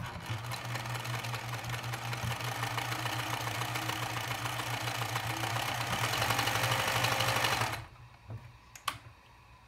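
Pfaff 209 metal-bodied free-arm sewing machine running steadily, sewing a multi-zigzag stitch through two layers of thin curtain fabric, a little louder toward the end. It stops about eight seconds in, followed by a couple of light clicks.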